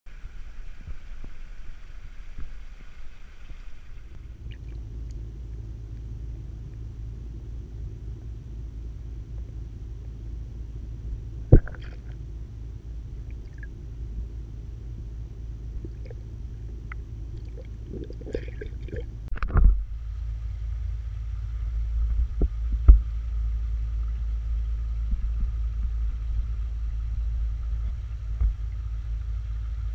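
Garden pond water heard through a camera that dips under the surface and comes back out. Above water there is a steady trickling hiss over a low rumble. Underwater the sound turns to a duller, muffled rumble with a faint steady hum, and about two-thirds of the way through there is a clatter of knocks and a splash as the camera surfaces.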